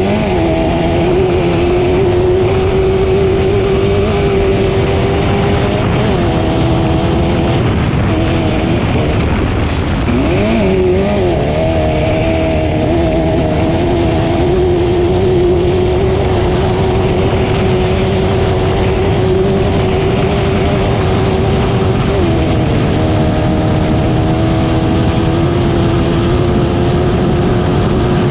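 Off-road race car's engine running hard at steady high revs for the whole stretch. Its pitch rises and falls with throttle, with a brief drop and wobble about ten seconds in and another change about twenty-two seconds in.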